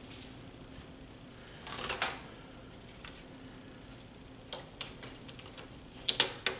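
Handling of the laptop's plastic screen parts: a brief rustle about two seconds in, then scattered light plastic clicks that grow sharper near the end.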